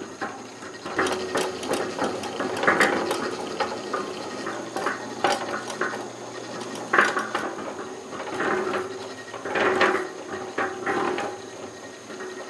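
Irregular metallic clicking and clanking of hand tools and mechanical parts being worked on.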